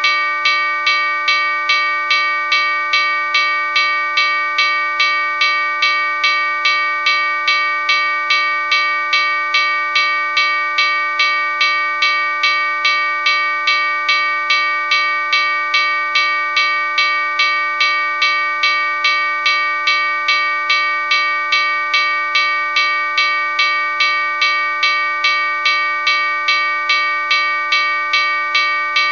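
Japanese railway level-crossing warning bell ringing steadily, about two strikes a second without a break.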